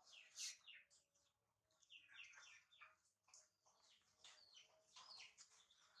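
Faint, rapid high-pitched chirps, each sliding down in pitch, in several short runs.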